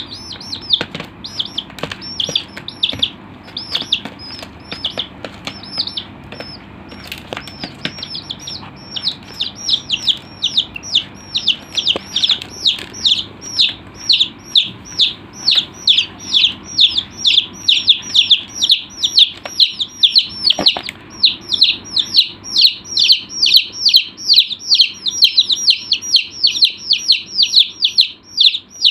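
Chicks peeping: a run of short, high-pitched peeps, each falling in pitch. They come scattered at first and settle into a steady, rapid series of about three to four peeps a second from about halfway through.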